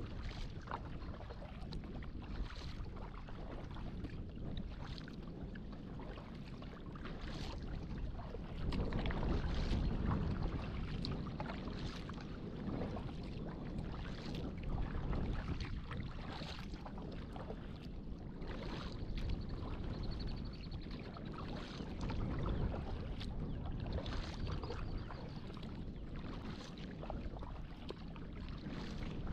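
Kayak being paddled: the paddle blades splash into the water in short, irregular strokes over a steady low rumble, louder for a couple of seconds about nine seconds in.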